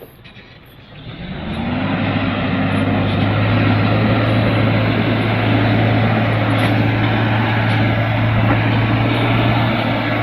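A truck engine rising in revs over about a second, then running steadily with a droning hum.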